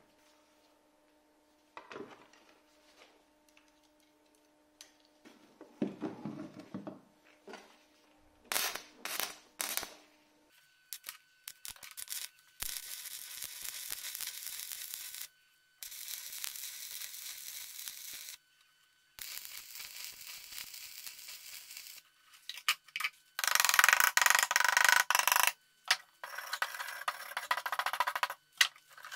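Stick-welding arc crackling and hissing in three runs of a few seconds each, with short breaks between, on a homemade welder built from a refrigerator compressor's motor coil. Before the welding come scattered clicks and scrapes of metal being handled. Near the end a steel wire brush scrubs the fresh weld bead, louder and rougher than the arc.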